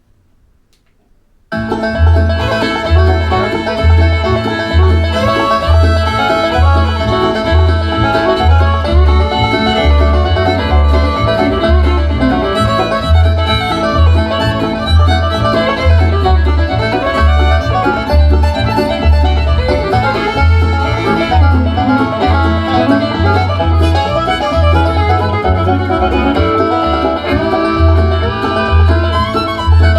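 Country/bluegrass-style music with banjo and fiddle over a steady deep bass beat, played back through a TCL S642W 2.1 soundbar and its subwoofer. It starts suddenly about a second and a half in, after near silence.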